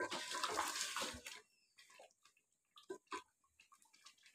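A spatula stirring thick mutton and potato curry as it fries down in an aluminium pot: wet squelching and frying noise for the first second or so, then a few scattered scrapes and clicks of the spatula against the pot.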